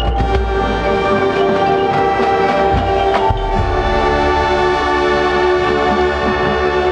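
Marching band brass playing held chords with percussion. There are sharp hits at the start and again about three seconds in, where the low brass swells louder.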